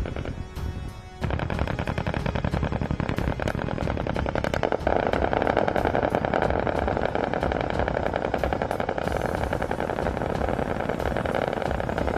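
Long run of rapid automatic gunfire, a dense rattle of shots, starting abruptly about a second in, mixed with background music that grows louder about five seconds in.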